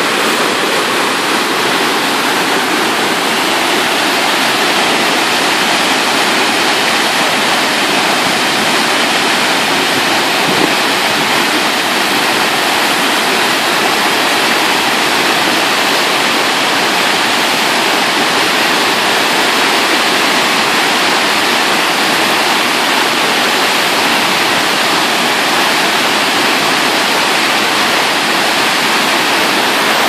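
Water pouring over a concrete dam spillway and churning in the pool below: a loud, steady rush of falling and tumbling water.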